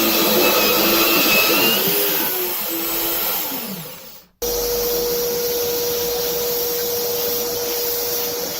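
Bandsaw motor running steadily, then spinning down with falling pitch about three and a half seconds in. The sound cuts off abruptly and comes straight back as a steady machine noise with a constant hum.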